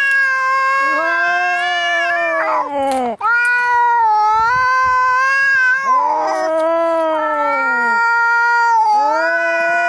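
Cats yowling in a fight: long, drawn-out, wavering howls from two voices, one higher and one lower, overlapping. There is a short break about three seconds in, and the howls slide down in pitch as they end.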